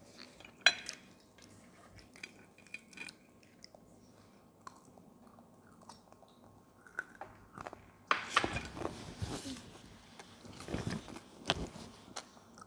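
Children chewing and biting into crispy fried battered seafood, with crunching and small clicks. A sharp click comes just under a second in, and the chewing gets louder and busier about eight seconds in.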